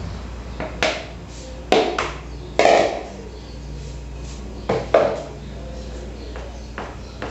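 A handful of sharp knocks of a plastic cup and a spatula against a plastic mixing bowl, about five in all, the one a little under three seconds in longer, like a scrape, as flour is stirred into cookie dough.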